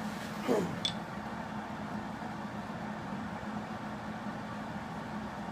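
Steady low shop hum, with a short falling scrape about half a second in and a sharp metallic clink just after it, as sheet metal is worked into place.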